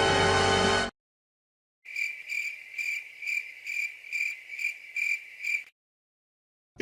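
Cricket chirping: one high chirp repeated about twice a second for nearly four seconds. Before it, a piece of music cuts off suddenly about a second in.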